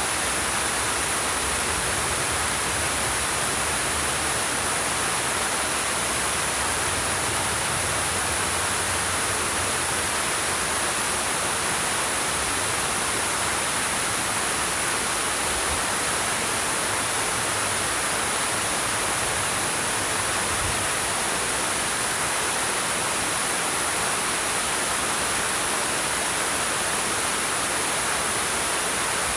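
Waterfall splashing down over rocks: a steady, unbroken rush of falling water with a bright hiss.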